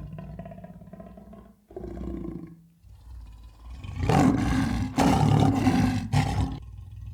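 A large farm animal calling: low, pitched calls in the first couple of seconds, then a loud, harsh call about four seconds in that lasts roughly two and a half seconds with a brief break in the middle.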